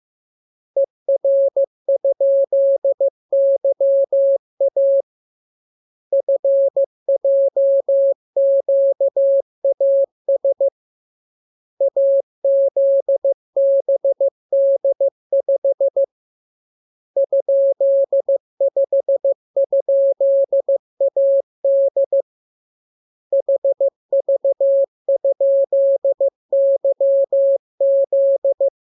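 Morse code (CW) practice tone: a single steady audio pitch keyed on and off in dots and dashes for receiving by ear. The characters come in about five runs of several seconds each, separated by pauses of about a second.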